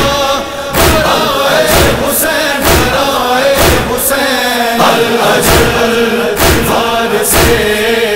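Male chorus chanting a noha refrain in Urdu, kept in time by heavy thumps about once a second in the manner of matam chest-beating.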